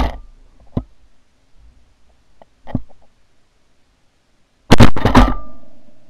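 Two 12-gauge shotgun shots about five seconds apart, the second followed by a quick clatter of further cracks as it dies away, with a few faint knocks between them.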